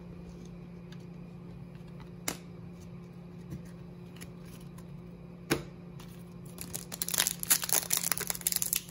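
Foil wrapper of a hockey card pack crinkling and tearing as it is handled and opened, a dense crackle that starts about two-thirds of the way in after two short knocks. A steady low hum runs underneath.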